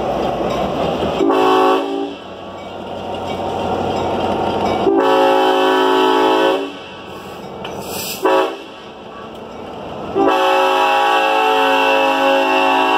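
Air horn of an EMD F3/F7 diesel locomotive blowing four blasts, two longer ones, a short toot, then a long final blast, the pattern of a grade-crossing signal. A low rumble of the locomotives rolling past comes before the first blast.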